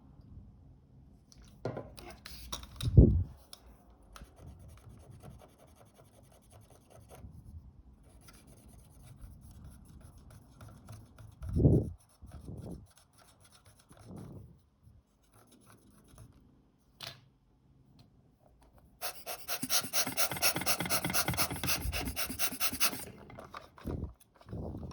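Rapid back-and-forth scrubbing strokes on small camera parts for about four seconds near the end, typical of rubbing off sticky glue residue; earlier, scattered light scratching and two soft knocks from handling the parts.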